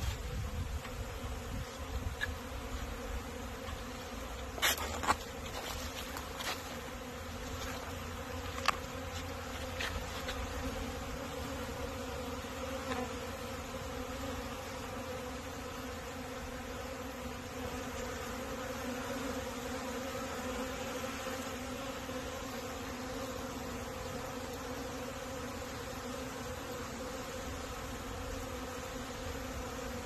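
Many honeybees buzzing around the hive entrances on a late-winter cleansing flight, a steady hum. A few sharp clicks come in the first ten seconds.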